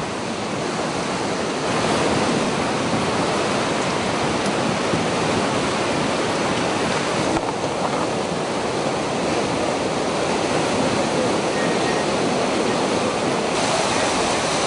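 Fast muddy floodwater from an overflowing river rushing, a steady loud rush of water with no break.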